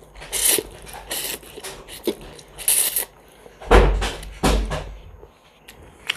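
Someone slurping instant noodles off chopsticks in a series of short, hissing slurps. The two loudest come about four seconds in.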